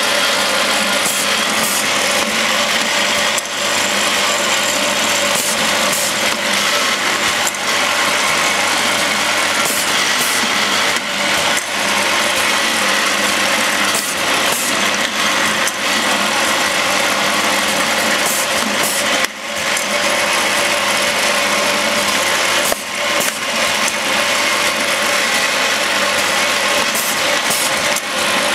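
Automatic bottle-capping machine and its slatted conveyor running: a steady, dense mechanical clatter, with short high hisses now and then.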